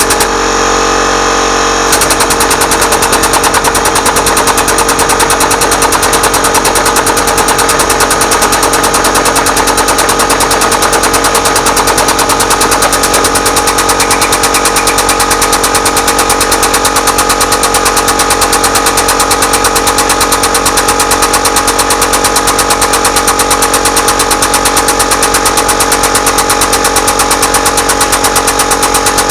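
Workshop air compressor cutting in about two seconds in over a steady machinery hum, then running with a rapid, even pulsing.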